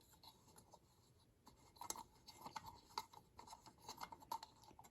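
Faint scratching and small clicks of an Allen wrench turning out the little screw on top of a Firelight BG6 fire alarm pull station, starting about two seconds in after near silence.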